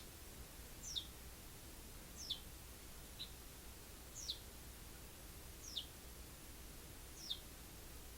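Eurasian tree sparrow giving single high chirps, each sliding down in pitch, about one every second or so, seven in all.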